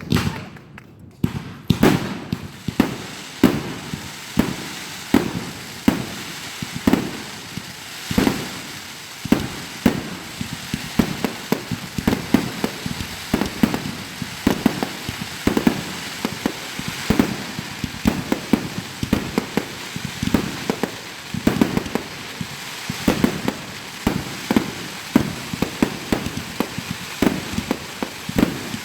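Fireworks going off in a steady barrage: a bang every second or so, with crackling in between.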